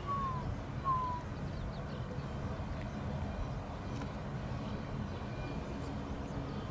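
A steady low outdoor rumble, with two short whistled calls near the start, about a second apart, each dropping slightly in pitch.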